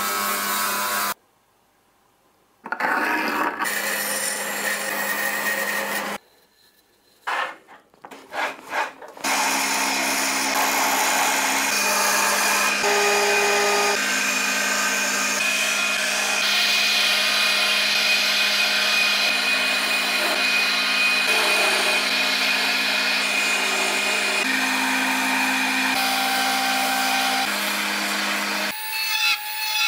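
Woodworking power tools in quick cuts. A table saw cuts a thick dark hardwood blank, then a wood lathe runs steadily for most of the time while a chisel cuts the spinning wand blank. Two short drops to near silence break up the first ten seconds.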